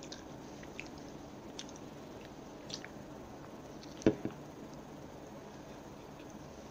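Close-miked mouth sounds of eating a soft bread sandwich: scattered small wet clicks and chewing, with one loud knock about four seconds in.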